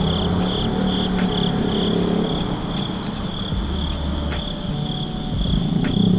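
Crickets chirping in a steady pulsing rhythm, about two to three chirps a second, over a low rumble of car engines.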